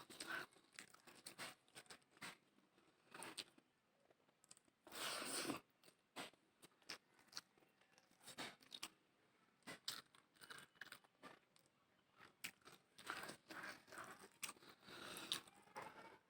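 A person eating close to the microphone: faint chewing with irregular crisp clicks and crunches, and a few brief louder bursts of noise.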